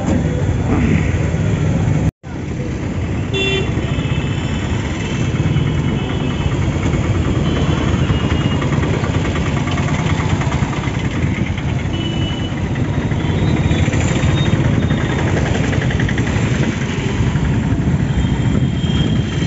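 Motorcycle engine running steadily under a rider carrying a pillion passenger through street traffic, with road rumble. Several short vehicle horn toots sound along the way. The sound cuts out completely for a moment about two seconds in.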